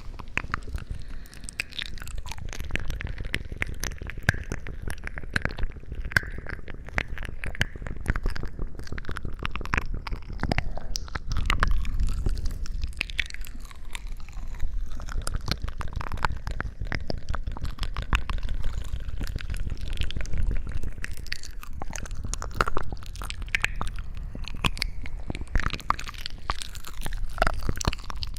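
Close-miked ASMR crunching and crackling: a dense run of rapid clicks over a heavy low rumble, without pause.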